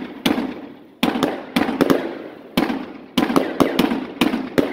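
Aerial fireworks bursting overhead in a rapid, irregular series of sharp bangs, about three a second, each with a short echoing tail.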